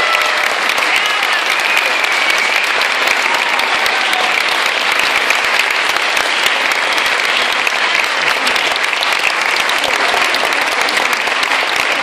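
A room full of people clapping in a steady, sustained round of applause, with a few voices calling out over it.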